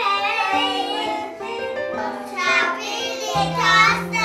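Young children singing an action song together along with music.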